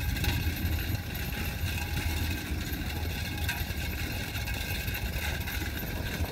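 A vehicle's engine running steadily under road and wind noise as it travels along a dirt track.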